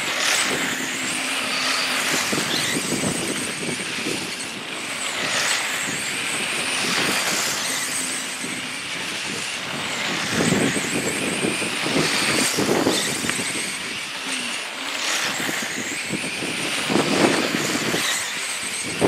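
Electric radio-controlled race trucks with 13.5-turn brushless motors running laps, their high motor whine rising and falling in pitch again and again as trucks pass.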